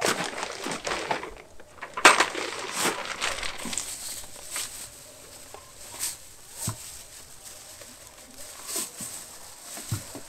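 Handling noises: footsteps and a bucket being put down, then plastic bottles being knocked and crinkled on a table. The sharpest knock comes about two seconds in, followed by scattered clicks.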